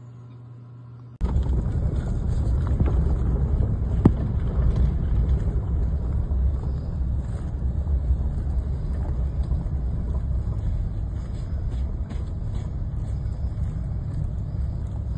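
Strong wind buffeting a phone's microphone: a loud low rumble that starts suddenly about a second in and surges up and down in gusts, with one sharp click about four seconds in.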